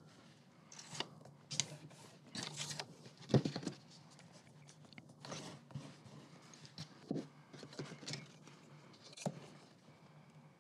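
Faint paper rustling and scraping as a book page is folded along a thin metal ruler and creased with a bone folder, with a soft knock about three seconds in as the ruler or book is handled.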